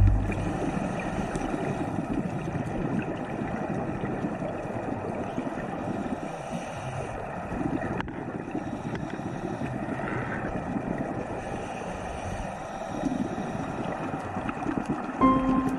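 Underwater ambient noise picked up by a camera in its dive housing: a steady, muffled rushing hiss. A faint click comes about 8 seconds in, and background music comes back in near the end.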